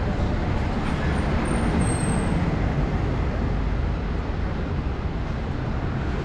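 Steady city road traffic, a low, even rumble of passing vehicles.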